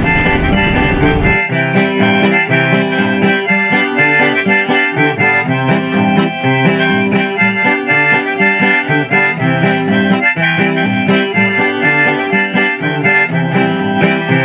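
Instrumental background music led by harmonica over acoustic guitar, with a steady rhythm. For the first second and a half a rushing wind noise from the motorcycle ride lies over it, then cuts off suddenly.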